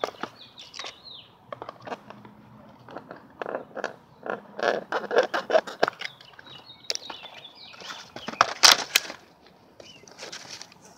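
Cardboard and plastic packaging being torn open and handled, giving irregular crackling, rustling and clicking in short bursts, with the loudest tearing about eight and a half seconds in.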